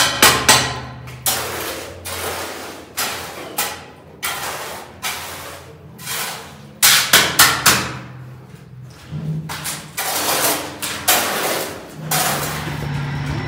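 Hammering: sharp knocks, some single and some in quick runs of four or five, the loudest run about seven seconds in, over a faint low hum.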